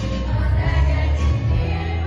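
Children's choir singing a song with instrumental accompaniment and a strong, steady bass.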